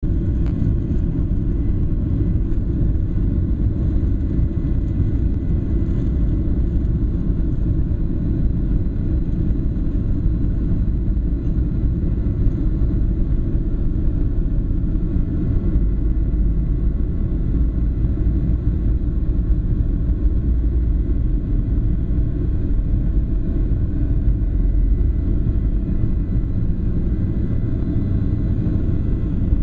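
Cabin noise of a Boeing 737-800/900 heard from a window seat beside its CFM56-7B engine as the jet moves along the runway. It is a loud, steady, heavy rumble with a faint high whine held at an even pitch.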